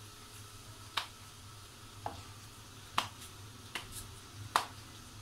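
A floured ball of chapati dough patted between the palms: six sharp slaps, irregularly spaced about a second apart, over a faint steady low hum.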